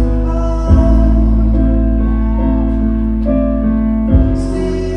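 Live band music with sustained keyboard chords over a deep held bass note, which comes in with a hit about a second in and cuts out near the end.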